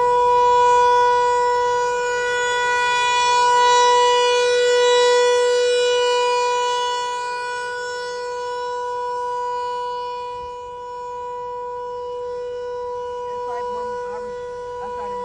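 Federal Signal 508-128 rotating tornado siren sounding one steady tone, its loudness swelling and fading every few seconds as the rotating horn sweeps past. It grows fainter over the second half.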